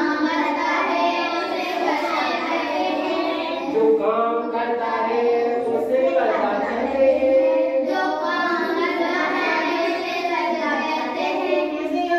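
Children's voices singing, in a continuous melodic line with held notes.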